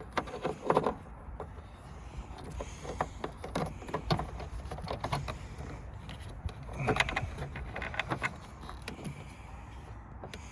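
Irregular small clicks and rustles of hands working car wiring and plastic connectors, over a low steady rumble.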